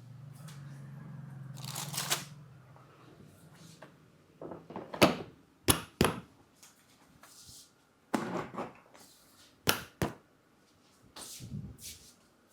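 Hands at work in an oiled head massage: soft rubbing noises broken by several sharp cracks, the loudest about five seconds in, with others following a second to several seconds apart. A low hum runs through the first two seconds.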